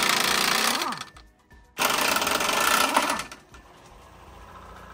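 Pneumatic impact wrench hammering in two bursts of about a second and a half each, spinning the top nuts off a truck's rear shock absorbers; each burst winds down in pitch as it lets off.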